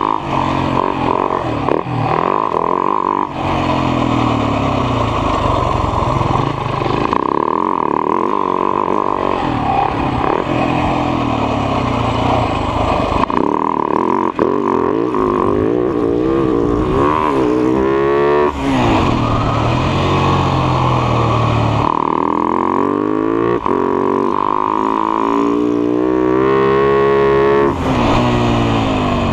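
Husaberg FS 570 single-cylinder four-stroke supermoto engine under hard riding. The revs climb and fall repeatedly as the rider accelerates and shifts gears, heard from on the bike.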